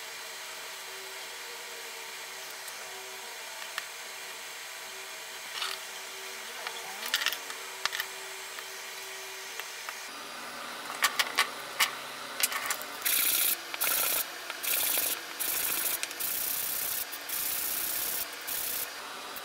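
A small wooden piece sanded by hand on a sheet of sandpaper fixed to a board: about seven rasping back-and-forth strokes, each half a second to a second long, in the second half. Before them come a few light clicks and taps of wooden pieces being handled.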